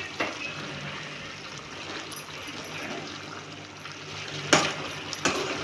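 Steel spoon stirring thick cauliflower gravy in a metal kadai: a steady stirring noise with a few sharp clicks of the spoon against the pan, the loudest about four and a half seconds in.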